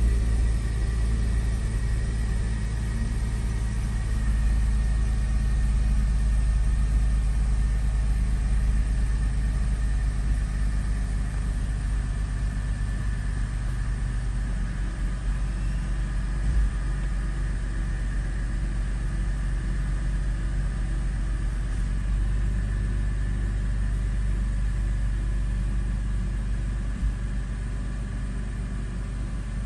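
A 2006 Mercedes-Benz SLK280's 3.0-litre V6 idles steadily at about 1,000 rpm, the raised idle of an engine soon after a cold start, heard from inside the cabin. A faint high whine sits over the idle and slowly drops in pitch.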